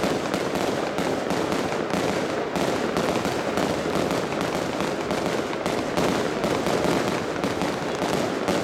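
Fireworks crackling: a dense, continuous run of rapid overlapping pops, like crackle stars bursting in the air, with no single big boom standing out.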